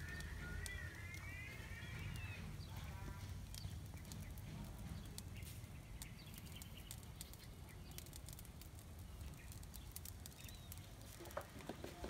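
A faint farm-animal call, wavering in pitch, fades out about two seconds in, with a shorter call just after. It sits over a steady low outdoor rumble, with a few light clicks later on.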